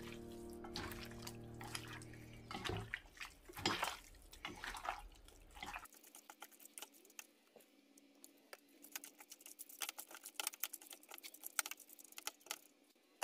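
Wet squelching and squishing as a hand kneads raw beef slices with onions and soy-sauce marinade in a stainless steel pot, in short irregular squelches. Background music fades out during the first couple of seconds.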